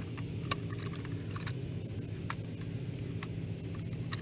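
Plastic clicks of a folding toy quadcopter's arms being swung open and handled: one sharp click about half a second in, then a few lighter clicks roughly a second apart.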